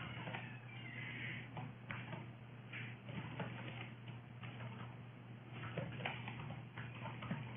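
Computer keyboard typing: soft, irregular key clicks over a steady low hum.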